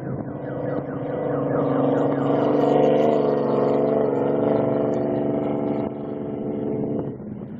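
Off-road race vehicle's engine held at steady high revs as it passes, growing louder to a peak about three seconds in, then falling away sharply about seven seconds in.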